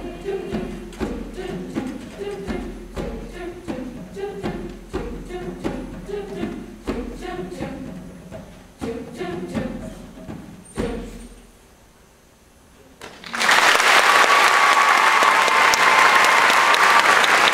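Treble choir singing with piano accompaniment in a steady rhythm, ending on a final chord about eleven seconds in. After a short hush, loud audience applause starts about two seconds later.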